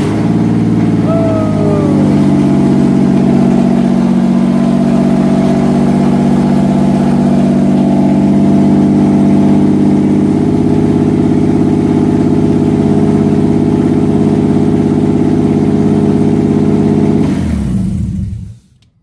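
Toyota 2JZ inline-six, swapped into a Mk3 Supra, running on its first start after the swap and idling steadily, with a short falling whine about a second in. Near the end it is switched off, and the engine runs down and stops.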